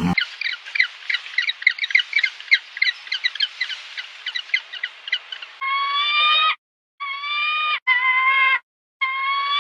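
Small birds chirping in a rapid, busy twitter, then a different call: four long, steady-pitched calls of about a second each, with silent gaps between them.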